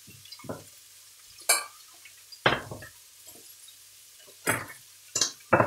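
Stainless steel saucepan and kitchen utensils clinking and knocking on a stovetop: about half a dozen separate sharp clinks, spaced a second or so apart.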